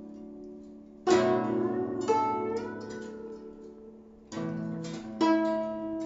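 Guzheng being played: plucked notes struck at intervals, each ringing and slowly dying away, with some notes bent in pitch by the left hand pressing the strings behind the bridges.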